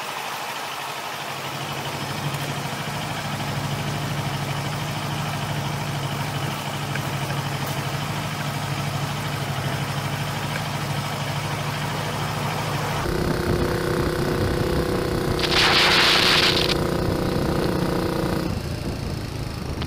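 Motorcycle engine idling steadily with a low, even tone. About two-thirds of the way in it gives way to a smaller motorbike's engine running at a steady, higher pitch. Soon after comes a brief loud hiss, the loudest moment.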